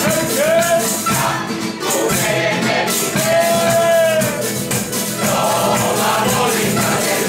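Canarian parranda folk music played live: singing with long held notes over hand percussion keeping a steady rhythm.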